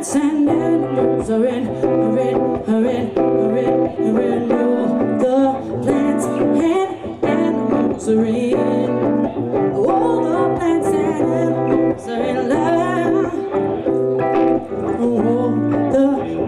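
Live song: a woman singing a sustained melody over guitar accompaniment.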